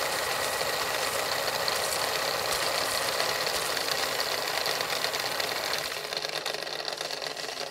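Film projector running: a steady, rapid mechanical clatter and whir that eases slightly near the end.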